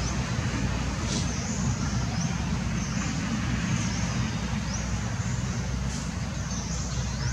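Outdoor ambience: a steady low rumble with a short, high rising chirp repeating about once a second.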